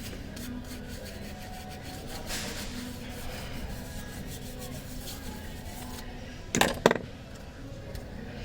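Light rubbing and scraping of phone parts being handled during a screen replacement, with two sharp clacks close together about six and a half seconds in.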